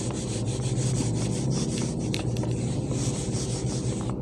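Whiteboard duster rubbed back and forth across a whiteboard to wipe it clean: a steady scrubbing that stops near the end.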